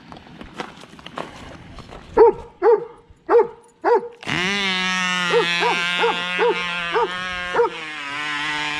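A dog barks in sharp single barks. About four seconds in, the small glow-fuel engine of a Cox model helicopter starts suddenly and runs at a steady high-pitched whine, and the dog keeps barking over it.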